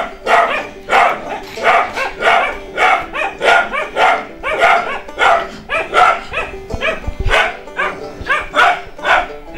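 Puppy barking over and over in quick high yapping barks, about two to three a second, stopping abruptly near the end.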